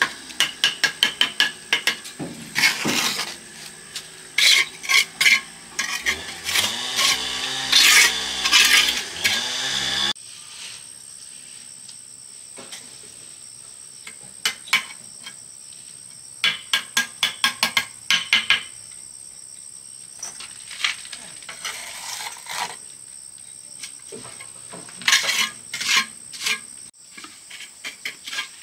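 Metal trowel scraping and tapping on bricks and wet cement mortar: runs of sharp taps and scrapes, quieter and more scattered after an abrupt change about ten seconds in.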